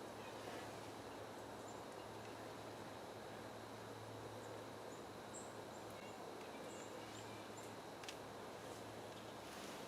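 Quiet woodland ambience: steady faint hiss with a low hum, and a small bird giving a run of short, high chirps in the middle. A single sharp click a little over eight seconds in.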